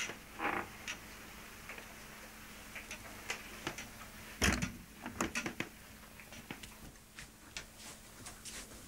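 A balcony door and someone moving about a room: scattered light clicks and knocks, with one louder knock about four and a half seconds in, over a faint steady hum.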